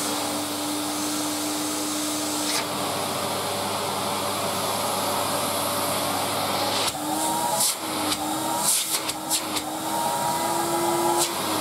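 Electrolux Z2020 cylinder vacuum cleaner motor running steadily. About seven seconds in, the wand's open end is held against a hand: the motor note wavers and shifts, a higher whistle joins it, and there are several sharp pops as the suction is choked and released.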